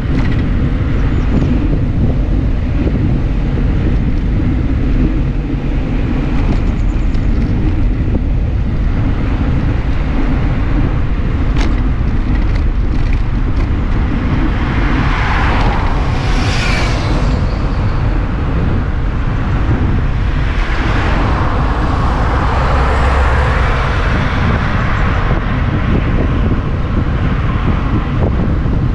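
Wind buffeting the microphone of a GoPro on a moving bicycle, a heavy steady rumble. A car passes about halfway through, rising and fading, and another passes a few seconds later.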